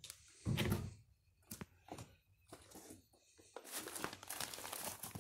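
Old papers and cardboard crinkling and rustling as they are handled and shuffled, with a dull thump about half a second in and scattered crackles, becoming a steady rustle from about three and a half seconds in.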